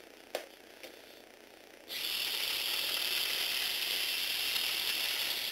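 Small electric motor and gearbox of a Lego Technic propeller vehicle starting up about two seconds in and running with a steady, high gear whine, then stopping near the end; a single click comes shortly before.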